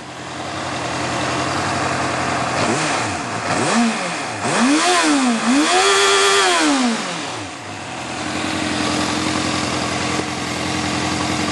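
Stock Honda CBF 600 inline-four engine idling, then blipped through about four quick revs in the middle, the last held a little longer, before settling back to a steady idle. The exhaust is completely stock.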